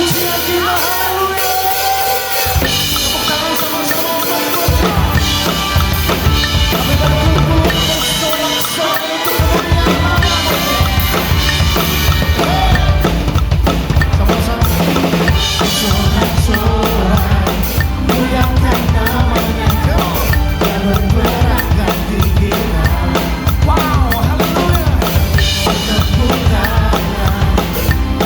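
Drum kit played at a fast tempo of about 190 beats a minute along with a backing song, with busy bass drum, snare and cymbals. The song's melody is heard first, and the drums come in a couple of seconds in and are steady and dense from about five seconds on.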